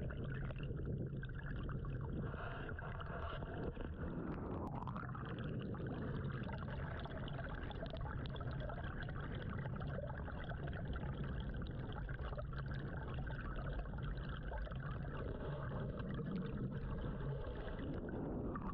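Muffled underwater sound: water noise with the steady low hum of an electric trolling motor running on low.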